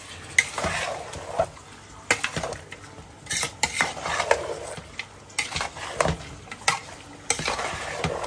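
A spoon stirring food frying in a pot: a steady sizzle broken by irregular clinks and scrapes of the spoon against the pot.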